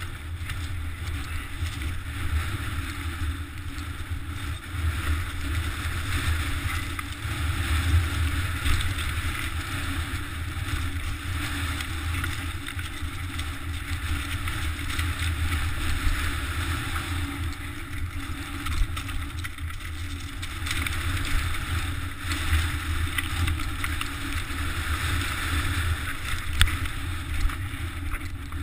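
Wind buffeting a GoPro's microphone on a moving mountain bike, over the steady crunch and rattle of the bike rolling down a loose rocky scree path, with scattered sharp knocks from the rocks.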